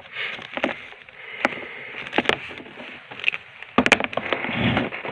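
Handling noise of an electric cord being untangled over plastic packaging: continuous rustling with many small clicks and taps. About four seconds in comes a louder rubbing bump.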